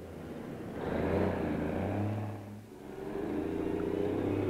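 Truck engine running with a low hum, growing louder twice with a brief dip between.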